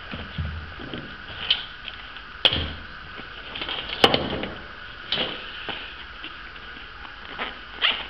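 Nylon gear, straps and pouches being handled and set down, with several sharp clicks and knocks, the loudest about two and a half and four seconds in, and rustling in between.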